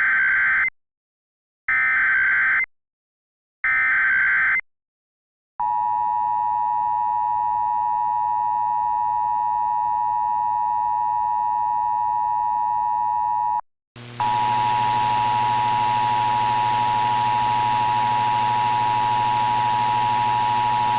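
Emergency Alert System tones: three short warbling SAME data bursts, then the two-tone EAS attention signal held steady for about eight seconds. After a brief break a second, hissier rendition of the two-tone attention signal with a low hum underneath starts and keeps going.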